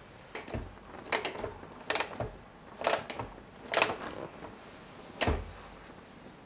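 Cushions being set down and patted on a leather sofa: a series of about six short rustles, each with a soft thump, roughly a second apart.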